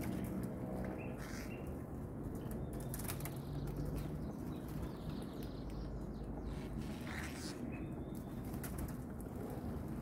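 Outdoor ambience: a steady low rumble with scattered light ticks and a few brief, faint bird chirps, about a second in and again near the seven-second mark.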